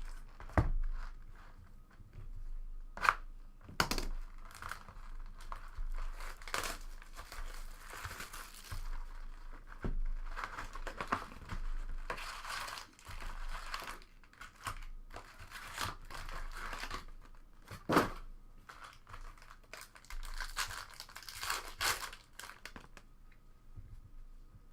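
Wrapping on boxes and packs of baseball cards being torn open and crinkled, irregular rustling with a few sharp snaps.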